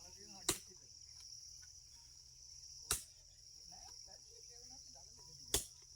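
A steady high-pitched chorus of insects, broken by three sharp knocks about two and a half seconds apart.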